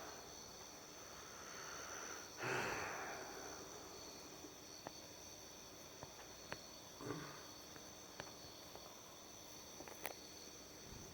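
Several faint, sharp clicks a second or two apart, the cracking of back and shoulder joints during an arm stretch, with a louder brief rush of rustling or breath about two and a half seconds in. A steady high-pitched whine runs underneath.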